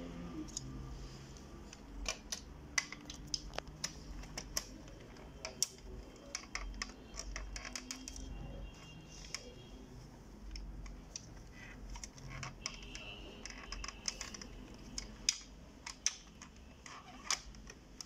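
Irregular light clicks and taps of hard plastic as the pickup rollers and gear of an Epson DS-1630 scanner's document feeder are handled and snapped into its plastic housing.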